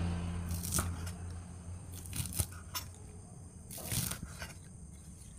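Kitchen knife slicing through green onion stalks on a wooden cutting board: several separate crisp cuts, each a short stroke of the blade through the stalks onto the board.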